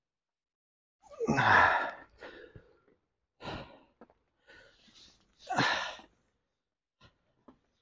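A man's heavy breaths and sighs in about five separate bursts, the loudest one just after the first second, followed by a couple of faint clicks near the end.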